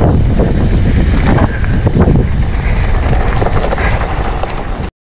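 Wind buffeting the microphone of a camera on a mountain bike riding fast down a dirt track, with tyre rumble on the dirt and repeated knocks and rattles from the bike over bumps. It cuts off suddenly near the end.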